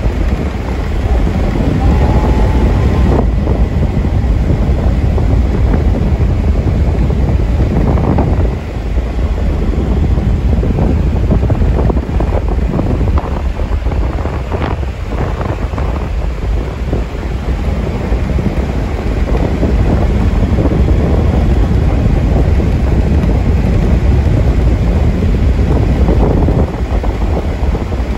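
Wind buffeting the microphone and road noise inside a 1979 Chevrolet Corvette cruising along, with its 350 small-block V8 running underneath.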